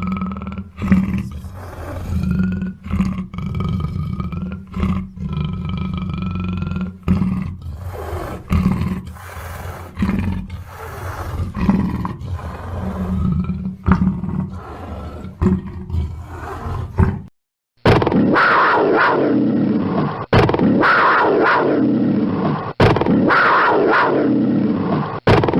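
Black panther growling and roaring: a low rumbling stretch of repeated growls, then, after a brief silence about two-thirds of the way through, a series of louder roars, each falling in pitch.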